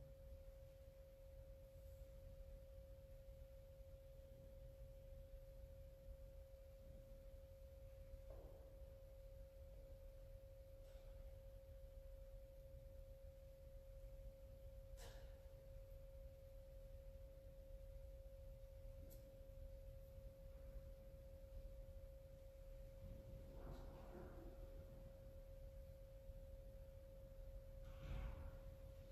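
Near silence: room tone with a steady faint single-pitched whine throughout and a few faint clicks and soft knocks.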